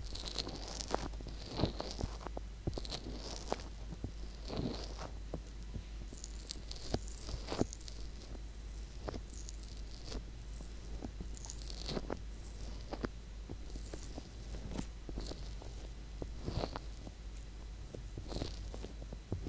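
Fingertips massaging the silicone ear of an SR3D binaural microphone: close, muffled rubbing and pressing with frequent irregular crackles and soft clicks as the thumb works into the ear canal and folds.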